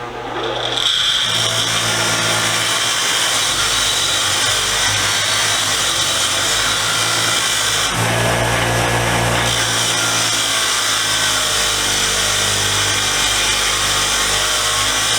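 Power wire wheel spinning up over about the first second, then running steadily as a metal hand tool is held against it to brush off grime and rust. There is a change in the sound about halfway through.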